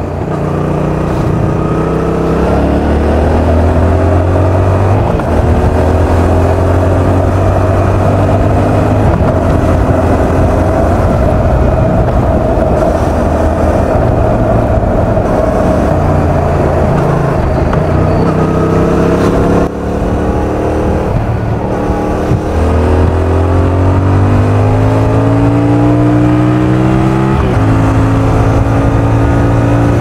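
Yamaha XSR700's 689 cc parallel-twin engine and exhaust under way, heard from a mic in the rider's back pocket. The revs climb and fall back several times as the bike accelerates and shifts gears.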